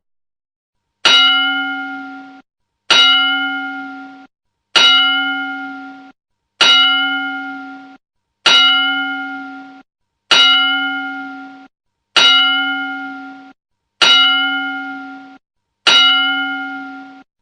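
Boxing ring bell struck nine times at an even, unhurried pace, each stroke a bright metallic clang that rings out and fades before the next.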